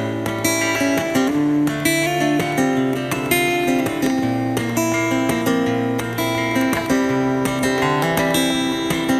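Acoustic guitar strummed in a steady rhythm, chords changing every second or two: an instrumental break between sung lines of a live song.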